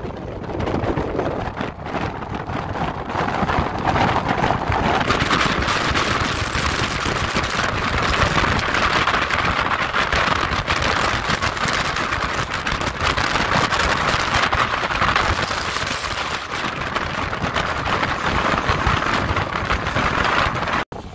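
Storm-force wind blowing across a smartphone's microphone, a loud, steady rushing noise that swells and eases in gusts. It cuts off suddenly near the end.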